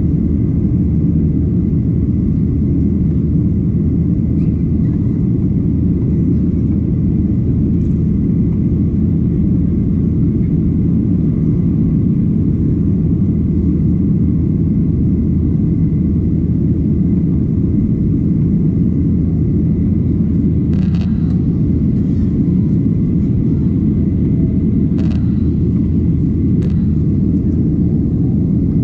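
Steady low roar of a jet airliner's cabin in flight, engine and airflow noise heard from a window seat. Three faint clicks come in the last third.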